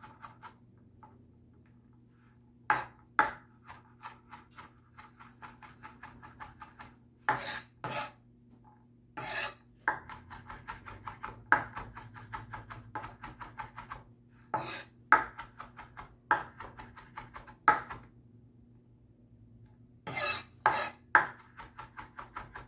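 Chef's knife mincing garlic on a plastic cutting board: quick runs of light chopping taps, several a second, broken by a few louder knocks and short pauses.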